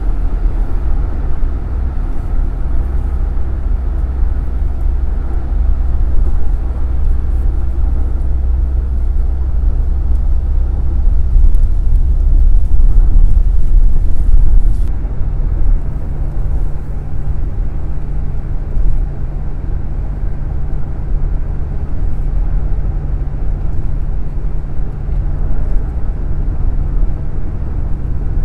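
Car driving at speed, heard from inside the cabin: a continuous low rumble of tyre and engine noise. It grows a little louder for a few seconds near the middle, then the hiss fades and a steady low drone is left.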